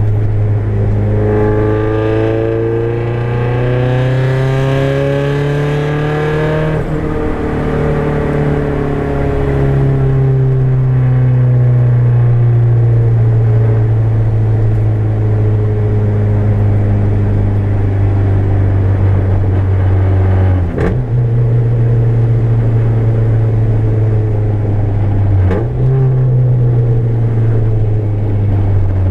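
Turbocharged Nissan KA24DET four-cylinder engine with an exhaust leak, pulling in gear: revs climb for several seconds, then drop at a shift about seven seconds in. It then runs at a steady, slowly falling pitch, with two sharp clicks and jumps in pitch near the end.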